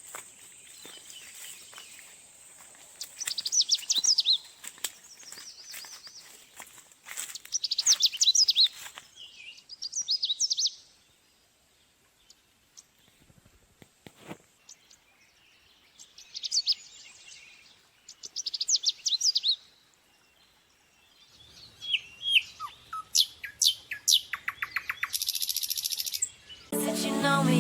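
Birds chirping in short bursts of high, quick chirps and trills, with quiet gaps between the bursts. Music with pitched notes comes in near the end.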